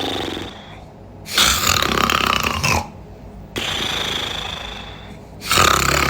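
A person snoring in an ordinary, regular rhythm. There is a loud snore about a second in and another near the end, with a quieter breath between. It is common snoring, with breathing that goes on without the pauses of sleep apnea.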